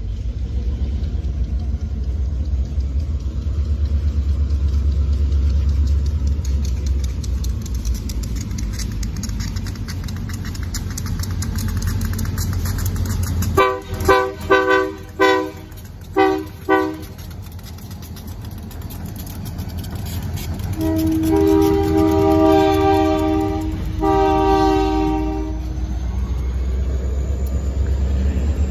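Diesel locomotive horn: a quick series of about five short blasts about halfway through, then two long blasts a few seconds later. A steady low rumble runs underneath as the locomotive approaches.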